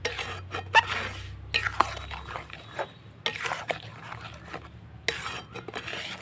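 A wooden spoon stirring roselle pulp and undissolved sugar in a metal kadai, with repeated scraping strokes and sharp knocks against the pan.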